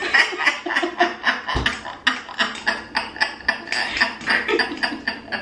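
Two women laughing together in a long run of short, repeated bursts.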